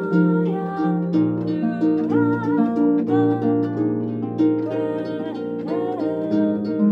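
Concert harp played in a continuous run of plucked notes, with a woman singing over it in a wavering melodic line.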